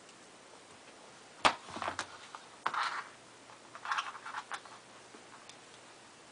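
Small metal clicks and ticks of Allen keys working the screws of an iPod nano watch case: one sharp click about a second and a half in, then scattered clusters of light ticks.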